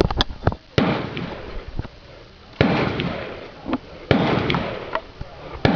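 Four gunshots about a second and a half apart, each a sharp crack followed by a fading echo.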